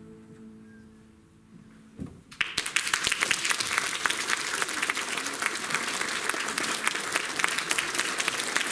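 The song's last chord fades out, and about two seconds in an audience breaks into steady applause that carries on.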